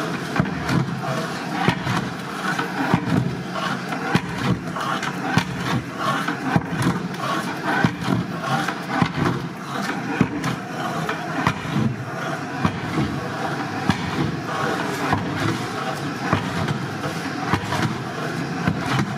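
A long metal ladle stirring and scraping through thick haleem in a large metal cooking pot, in continual uneven strokes with frequent knocks against the pot.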